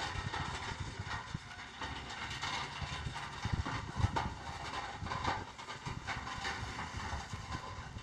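Heavy construction vehicle clattering and rattling as it works, with a steady mix of irregular knocks and loose metal rattles over a hiss.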